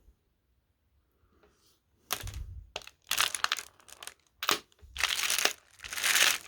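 Crinkling, rustling handling noise in a series of short bursts, starting about two seconds in after a near-silent pause.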